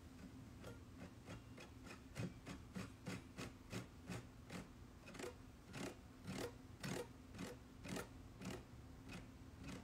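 Electric guitar strings strummed softly with muted, percussive strokes in a steady rhythm of about three strokes a second, a faint note ringing briefly after some of them.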